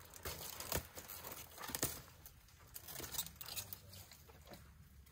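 African elephant browsing on a bush, its trunk tearing off leaves and snapping twigs: a run of irregular crackles and snaps, the loudest about a second in and just before two seconds in.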